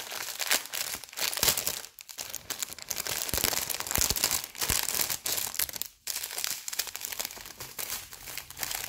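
Thin plastic packets of diamond-painting gems crinkling and rustling as they are handled, with short pauses about two seconds in and about six seconds in.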